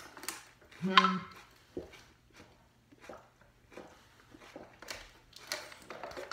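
Water being gulped from a plastic bottle, with soft clicks and crinkles of the bottle and swallowing sounds. A brief voice sound comes about a second in.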